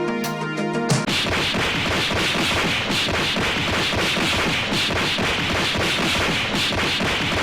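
Music cuts out about a second in. A dense barrage of cartoon fight impact sound effects follows, with many hits a second.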